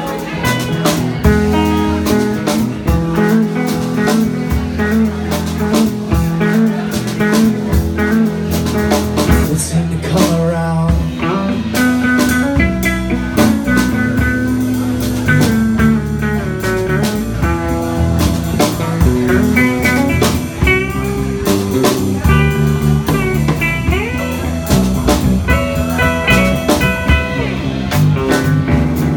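Live band playing an instrumental passage: two electric guitars over a drum kit.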